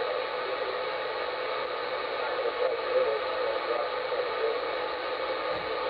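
Uniden 980SSB CB radio's speaker giving a steady static hiss on channel 38, with faint wavering signals buried under the noise.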